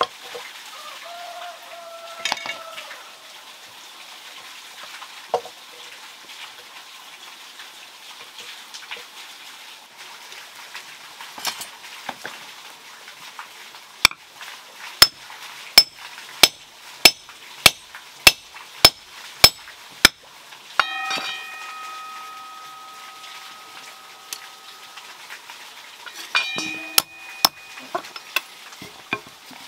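Hand hammer striking red-hot iron on a stone anvil: a steady run of about ten sharp blows, nearly two a second, midway through. Later, single blows leave the metal ringing with a clear tone for a few seconds, over a faint steady hiss.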